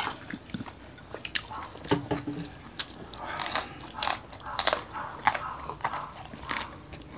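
Close-miked eating: a person biting and chewing food, with irregular wet clicks and crunches of the mouth and teeth. A short hum is heard about two seconds in.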